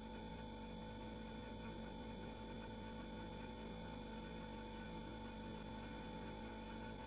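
Household refrigerator running: a low, steady hum made of several constant tones that does not change.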